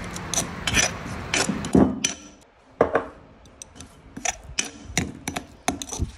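A pestle knocking in a mortar, pounding garlic, chilli and ginger into a coarse paste, with a short pause about two and a half seconds in.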